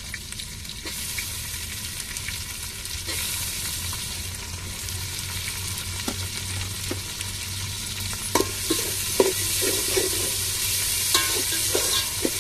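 Chopped tomatoes sizzling as they fry with onions and green chillies in an aluminium pot, the sizzle building over the first few seconds. A slotted steel ladle stirs them, scraping and clinking against the pot more and more often in the second half.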